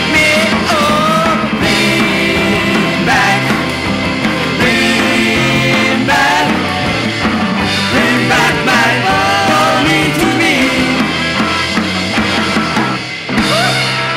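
Recorded rock and roll band music: two guitars over bass guitar and a drum kit playing at full tilt, with a brief drop about a second before the end.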